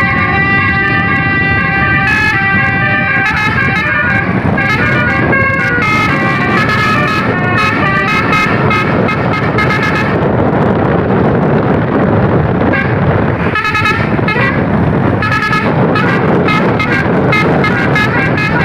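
Indonesian bus 'telolet basuri' multi-tone air horns playing a melody of quick-changing chords. About ten seconds in the melody stops and a steady noisy rush takes over, with short horn blasts breaking through twice a few seconds later.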